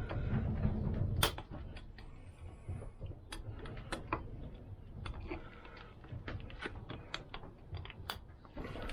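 Irregular metallic clicks and taps of heavy pliers and a steel circlip being squeezed and worked into its groove over a bearing, with a low rumble in the first second.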